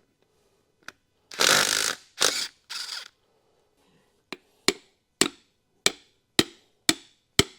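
Hammer blows knocking the pistons out of a Ford 300 inline-six block: seven sharp ringing strikes, about two a second, in the second half. Before them come three short loud bursts of a power tool.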